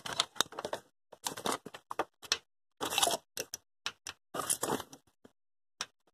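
Handling noise on the phone's microphone: irregular bursts of rustling and knocking as the hand and phone move and rub against it, with no steady engine sound.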